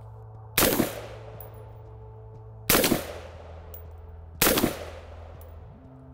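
Three single rifle shots from an AR-15 in .223, about two seconds apart, each followed by a short echoing tail; a fourth shot comes right at the end. This is slow, deliberate single fire, each shot timed as the red dot settles on the aiming point.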